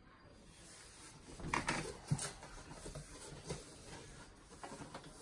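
Boxed Funko Pop figures being handled in a cardboard shipping box: cardboard rubbing and scraping, with a few louder knocks and rustles about one and a half to two seconds in.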